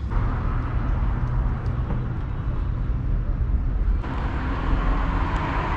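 RV ceiling fan running steadily with a low hum and rushing air, stepping up louder about four seconds in.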